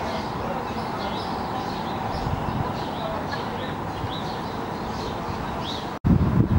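Small birds chirping over and over, short high chirps above a steady outdoor background hiss. About six seconds in the sound cuts out for an instant and gives way to wind rumbling on the microphone.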